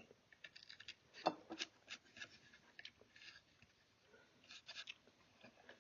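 Small hand chisel being pushed through wood across the grain: faint, irregular crunching and scraping cuts.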